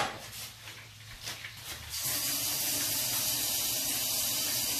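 A knock at the start, then a kitchen faucet opened about two seconds in, with water running into the sink as a steady hiss until it is shut off near the end.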